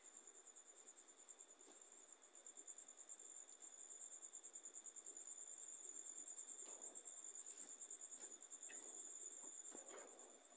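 Crickets trilling faintly at night: a steady, fast-pulsing, high-pitched trill that swells a little in the middle. A single soft knock near the end.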